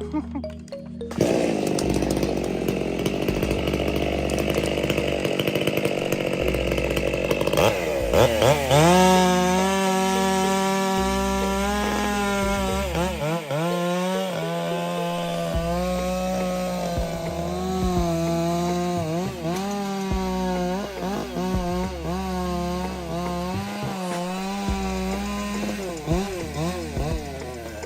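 Two-stroke chainsaw running at high revs and cutting wood. A rough, noisy stretch gives way about eight seconds in to a steady high engine whine, whose pitch sags briefly several times as the chain bites.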